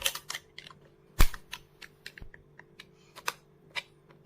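Sharp plastic clicks and snaps, irregular with one louder crack about a second in, as the plastic casing of a third-party Dyson vacuum battery pack is pried open and its snap clips come loose.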